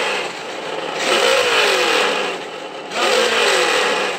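Traxxas On Board Audio sound module in an RC truck playing a simulated engine through its speaker, revving over and over with the pitch sliding back down after each rev.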